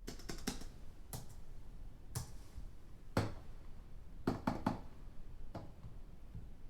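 Computer keyboard typing heard from a distance: sharp keystroke clicks in irregular bursts, some in quick runs of two or three, over a steady low hum.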